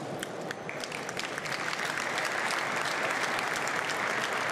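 Audience applauding, a dense patter of many hands clapping that swells louder about two seconds in.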